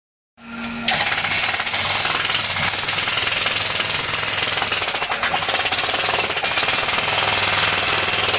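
Jackhammer hammering into rock in a steady, rapid rattle, with a steady high whine over it. It starts about a second in and runs on with only a brief falter about halfway through.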